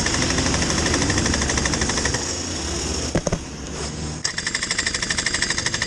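Rotax Junior Max 125cc two-stroke kart engine idling while the kart stands still, a rapid, even pulsing close to the microphone. A brief clatter breaks it about three seconds in.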